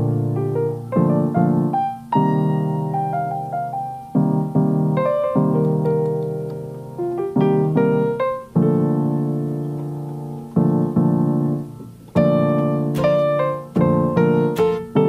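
Background music: solo piano playing a slow melody of struck notes and chords that ring and fade.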